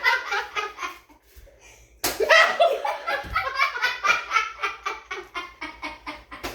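Several people laughing hard. The laughter dies down within the first second, then breaks out again sharply about two seconds in and keeps going in quick repeated bursts.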